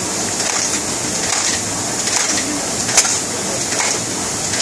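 Concept2 indoor rower's air-resistance flywheel whirring steadily under hard rowing, with a sharp click about three seconds in.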